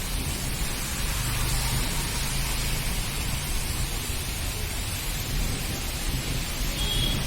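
Steady monsoon rain falling, an even hiss with a low rumble underneath. A brief faint high tone sounds near the end.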